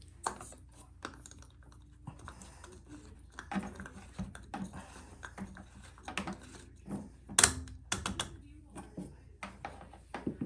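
Irregular light plastic clicks and knocks from handling and refitting a washing machine's cleaned drain-pump filter and drain hose, with the loudest cluster of clicks about seven seconds in.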